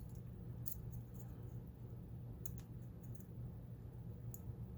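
Faint, scattered small metallic clicks from a padlock's core and pins being worked with picking tools, over a steady low hum.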